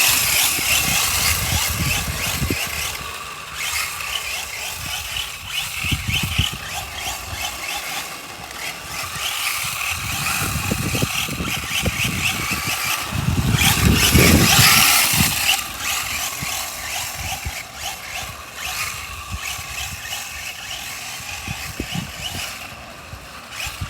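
Traxxas Slash 4x4 RC truck driving and sliding on hard 3D-printed plastic drift tires: electric motor running and tires skidding on the ground, swelling and fading as it speeds up and slows, loudest a little past halfway.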